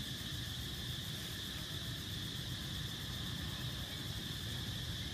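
Steady high-pitched drone of insects, unbroken, over a low steady rumble.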